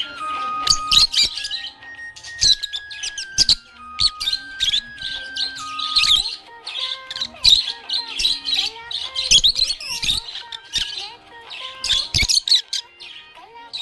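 Budgerigars chirping and warbling in quick high bursts over background music with a simple stepping melody.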